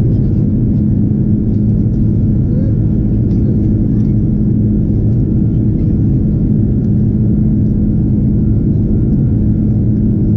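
Steady cabin drone of an Airbus A330 airliner in flight: jet engine and airflow noise heard from a window seat beside the wing, an even low rumble with a steady hum.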